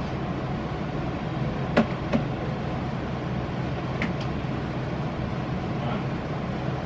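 Steady low hum of room noise, with a sharp click a little under two seconds in, a second soft click just after it, and a faint tick about four seconds in.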